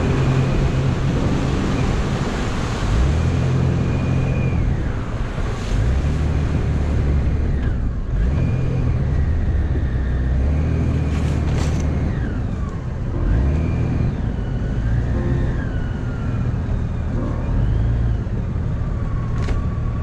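A 4x4 vehicle's engine running under load as it drives, its low hum shifting up and down in steps, with a thin high whine that slides in pitch now and then.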